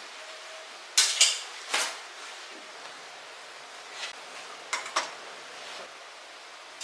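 Kitchenware clinking and clattering: three sharp knocks about a second in, then a few lighter clicks and knocks around four to five seconds in.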